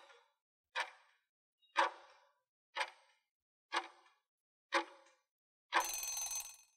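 Countdown timer sound effect ticking once a second, five times. About six seconds in, a ringing time-up tone with several steady pitches runs for about a second as the count reaches zero.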